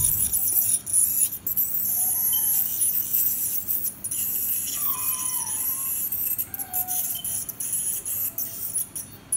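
Ultrasonic dental scaler working on a dog's back molars, a steady high hiss that cuts out briefly several times as the tip comes off the tooth. Faint short squeaks sound now and then.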